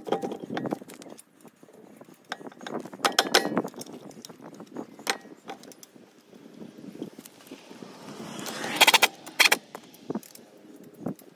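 Metal lug nuts clinking and rattling as they are handled and threaded onto the wheel studs by hand, in scattered clicks with a louder quick run of clatter about nine seconds in.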